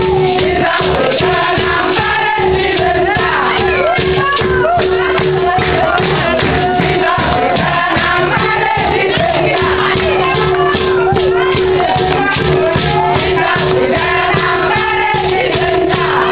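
Several voices singing together over rhythmic percussion. A steady hum runs underneath and drops out for a few seconds midway.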